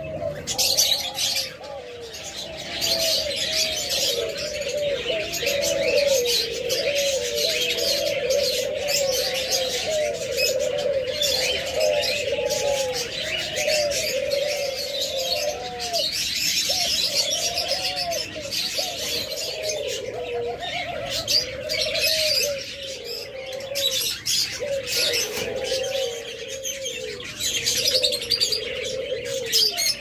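Many caged ringneck doves cooing over and over, their repeated arched coos overlapping without a break, with small cage birds chirping continuously in a higher register above them.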